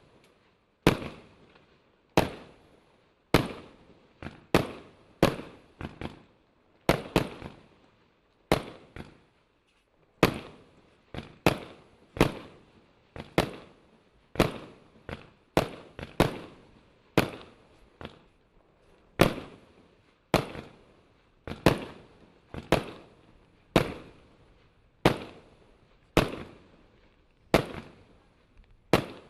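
Imperial Salute firework firing a long string of loud salute bangs, about one a second at uneven spacing with a short pause partway through, each bang trailing off in a brief echo.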